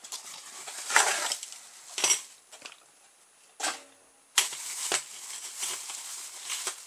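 A cardboard box being opened and a clear plastic bag of small parts pulled out and handled, crinkling and rustling in several short bursts. A sharper rip or knock comes about four and a half seconds in.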